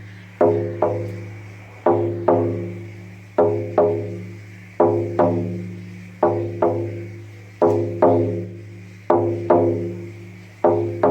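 Lakota healing frame drum beaten in a slow heartbeat rhythm, a double stroke repeating about every second and a half, eight pairs in all. Each stroke rings with a low, booming tone that dies away before the next.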